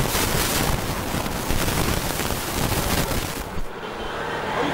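Street noise with wind rumbling on the microphone. About three and a half seconds in it gives way to traffic with a steady low engine hum.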